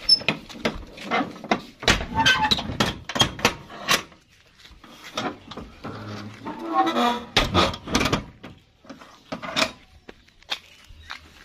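Irregular knocks and bumps in quick clusters, with a short lull near the middle.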